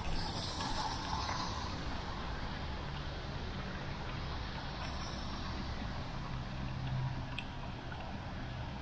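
Steady rush of road traffic on wet asphalt, heard from a moving bicycle, with a low hum underneath. A brighter hiss of tyres on the wet road rises in the first two seconds.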